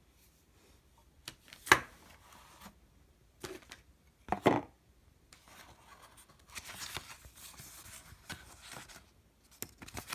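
Unboxing handling noise: two sharp knocks, about two and four and a half seconds in, as the modem card is handled over its cardboard box, then paper instruction sheets rustling as they are leafed through and lifted out.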